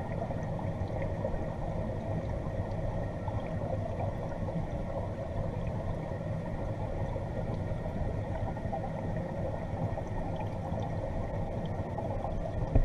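Steady, muffled underwater hum and gurgle in a koi pond, heard through a submerged camera, with a brief knock near the end.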